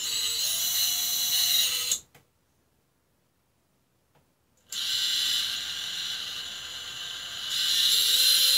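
Brushless motors of a Newbeedrone Vivid FPV quadcopter spinning one at a time without propellers, giving a high-pitched whine. The first cuts off about two seconds in, and after nearly three seconds of silence the next starts and runs, louder near the end. They sound a little crunchy, which the owner takes as a sign that the motors may be due for replacement.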